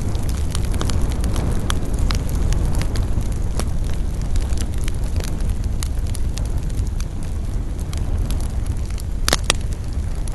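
Wood campfire crackling: frequent sharp pops and snaps over a steady low rumble of the burning fire. A louder double pop comes near the end.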